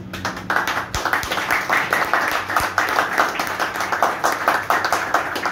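Applause: many people clapping their hands, a dense patter of claps that fills out about a second in.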